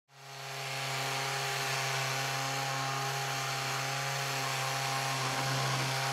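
Ryobi cordless detail sander running steadily on oak trim, a constant motor hum with a buzzing sanding noise.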